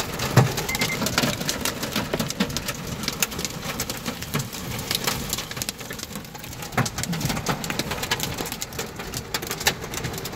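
Hail and heavy rain pelting a car's roof and windows, heard from inside the cabin: a dense, irregular patter of sharp ticks and knocks over a steady rush of rain.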